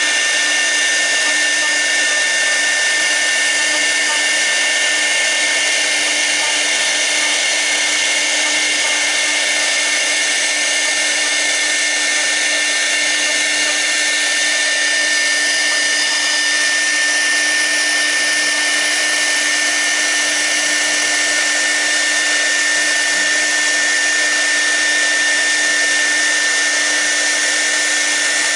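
6 kW air-cooled CNC router spindle running at a constant speed during a V-bit carving pass: a steady high-pitched whine over a steady hiss.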